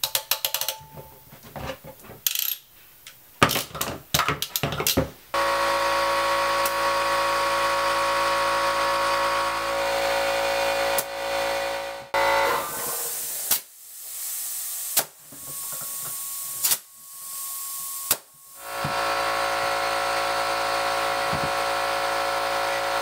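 Ratcheting crimp tool clicking as it closes a crimp ring on PEX tubing, then an air compressor running steadily. Between about 12 and 18 seconds the air cuts out and comes back in several short hissing bursts as an air chuck fills the PEX loop through the pressure gauge assembly's valve.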